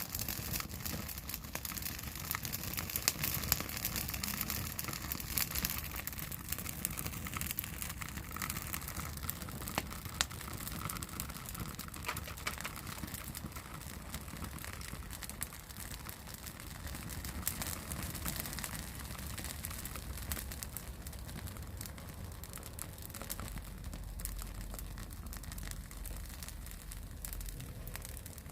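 Wood fire crackling, with many small sharp pops and snaps over a soft hiss.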